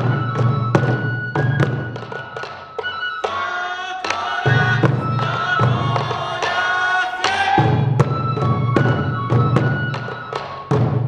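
Sansa odori festival music: taiko drums beaten to a steady rhythm under a high bamboo flute. In the middle a group of voices sings out together over the drums for a few seconds.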